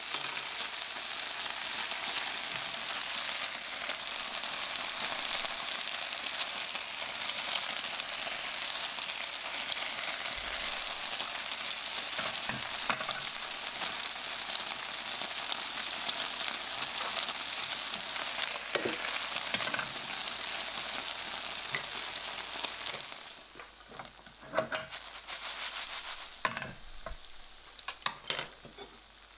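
Gyoza frying in oil in a nonstick frying pan: a steady crackling sizzle. About three quarters of the way through the sizzle drops away sharply to a faint crackle, and a few sharp clicks and knocks follow near the end.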